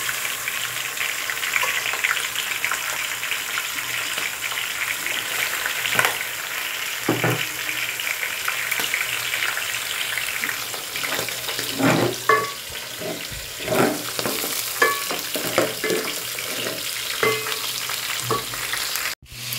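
Chicken pieces frying with onions in hot oil in a pot: a steady sizzle. From about six seconds in it is broken by scattered knocks and scrapes of a spoon stirring against the pot.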